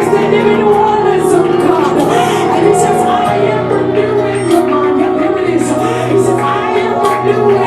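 Gospel worship music with singing over it: low notes held steady, moving to a new note about three seconds in, under voices singing.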